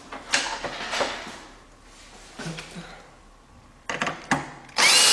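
A few light clicks and knocks of parts being handled, then near the end a cordless drill-driver starts and runs steadily with a slightly rising whine, driving a screw into a truss-pole fitting of the telescope's secondary cage.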